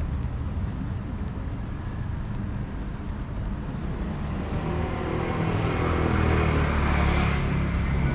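Street traffic rumbling steadily, then a motor vehicle passes close by, its engine tone dropping in pitch as it goes past, loudest near the end.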